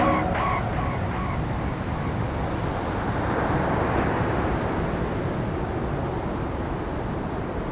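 Ocean surf washing onto a rocky beach: a steady low rumble with a wave swelling up about three to four seconds in. The last ringing notes of music die away in the first second.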